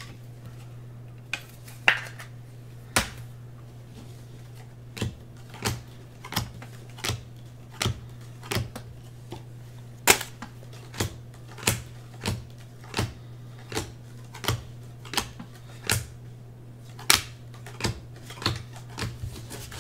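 Football trading cards being flicked through one at a time in the hand, each card giving a sharp click. There are a few scattered clicks at first, then from about five seconds in a steady run of roughly one click every two-thirds of a second.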